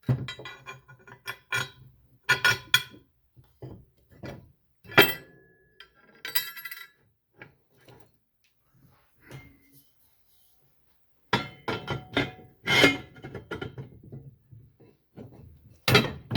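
Steel bolts, washers and plates clinking and knocking as they are handled and fitted together. The clinks come in scattered clusters, some with a short metallic ring, with a quiet stretch in the middle.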